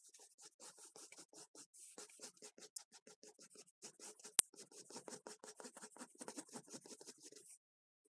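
Pencil scratching on a large sheet of drawing paper in rapid back-and-forth hatching strokes. There is one sharp click about halfway through, and the scratching stops abruptly near the end.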